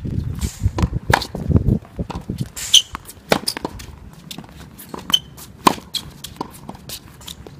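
Tennis balls being struck by rackets and bouncing on a court: a string of sharp pops at irregular intervals.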